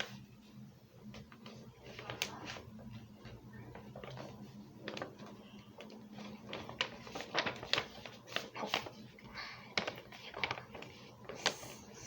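Sheet of paper being handled and folded: irregular crinkles and creasing rustles, more frequent in the second half, over a faint steady low hum.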